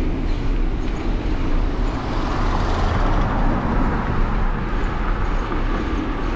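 Steady rumble and road noise of a moving vehicle, swelling a little in the middle.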